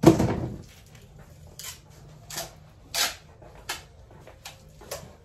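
A sharp knock at the start, then a series of short rustles and clatters, about one every half second to a second, as objects are handled and moved around.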